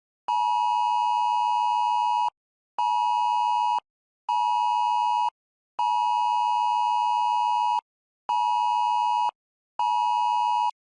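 Electronic alert beeps from an emergency alert receiver: a steady mid-pitched tone sounding long-short-short, then long-short-short again, signalling an incoming alert, here a new tornado warning.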